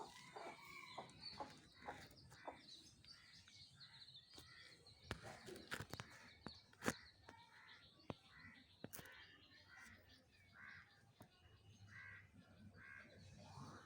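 Faint, repeated bird calls, short and evenly spaced, with a few sharp clicks in between.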